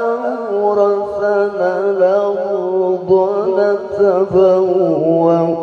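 Male Qur'an reciter singing a long melodic tilawah phrase through a microphone and PA, with quick wavering ornaments and a few brief breaks for breath. His voice is hoarse and pushed, which he himself warned of at the start.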